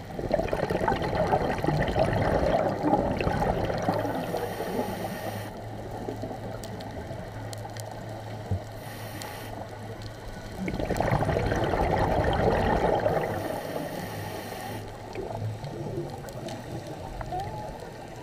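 Scuba diver's exhaled bubbles gurgling out of the regulator underwater, two long exhalations, one starting about half a second in and another about eleven seconds in, with a steady low hum underneath.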